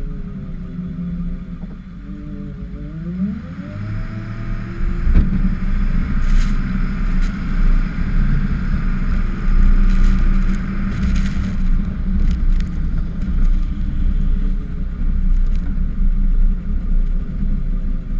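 Ford F-550 plow truck's engine running, its revs rising sharply about three seconds in and then pulling louder under load, with the plow blade scraping and pushing snow.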